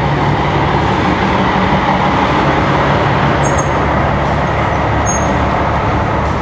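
Heavy trucks' engines running close by, a steady low hum under dense traffic noise. The hum fades a few seconds in.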